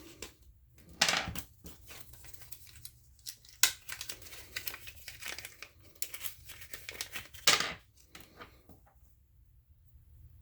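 Packaging of a pack of Wera screwdriver bits being torn and crinkled open by hand, in irregular rasps with three louder rips, about a second in, midway and a little after seven seconds, then going quiet for the last couple of seconds.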